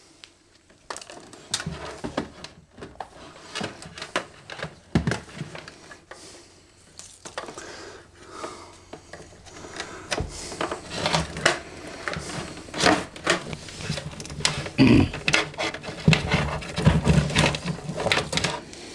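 Irregular clicks, knocks and rustling of Ethernet patch cables being handled, with RJ45 plugs pulled from and pushed into a router's ports; the clatter gets busier and louder in the second half.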